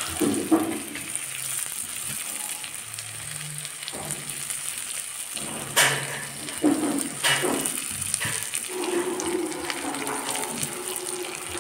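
Spiced masala sizzling in hot oil in a wok as boiled potato pieces are crumbled in by hand. Three short, sharp knocks come a little past the middle.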